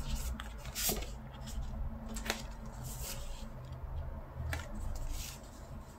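Stiff paper postcards being leafed through and slid over one another by hand: about five short papery scrapes and light taps.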